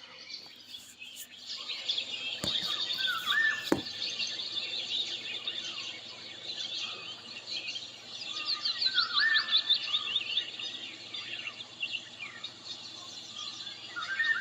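Many birds chirping and singing at once, with short rising and falling calls overlapping throughout. Two sharp clicks come about two and a half and about four seconds in, over a faint steady low hum.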